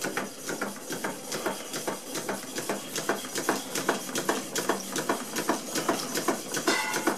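Stuart model steam engines running together on steam from a Stuart 504 boiler, their moving parts and exhaust making rapid, uneven clicking, several clicks a second.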